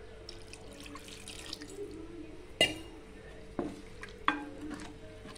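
Wooden spoon stirring thin, watery tamarind curry in a pot: soft liquid sloshing, with three sharp knocks of the spoon against the pot in the second half.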